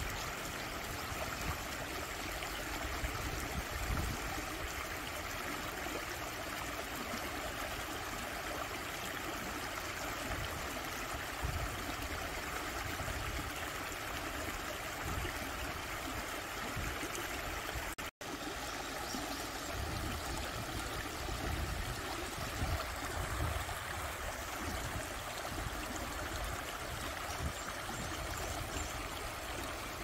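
Shallow rocky stream babbling over stones: a steady rush and splash of running water, cutting out for an instant about eighteen seconds in.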